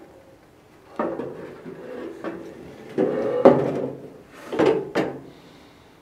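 Parts of a vintage electric heater being handled on a workbench: three bouts of scraping and clunking, about a second in, around three seconds in and near five seconds in.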